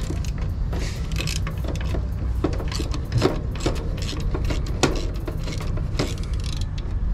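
Hand ratchet clicking in short, irregular runs as a bolt on a truck's disc brake chamber is tightened, over a steady low rumble.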